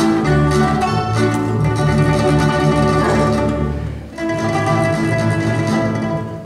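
Small plucked-string folk band of mandolins, guitars and double bass playing a lively dance tune. The music drops out briefly about four seconds in, then picks up again.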